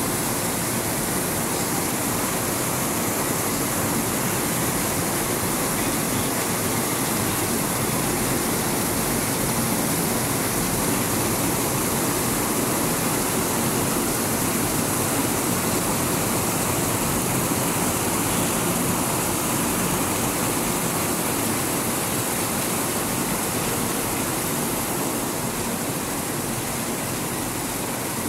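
Heavy rain pouring, with runoff streaming off a roof edge and splashing below: a steady, loud rushing hiss that eases slightly near the end.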